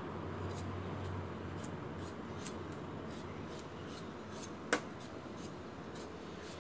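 A spoon scraping the skin off a piece of fresh ginger root: light, irregular scratching with small clicks, and one sharper click about three-quarters of the way through.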